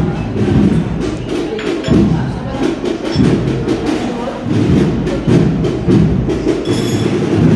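Marching drum corps playing: a massed line of snare drums beating a march with stick and rim clicks, backed by bass drum beats.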